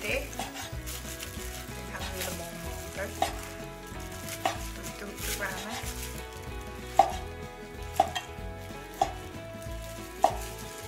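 Cleaver slicing cooked pork belly on a wooden cutting board, the blade knocking down onto the board about once a second.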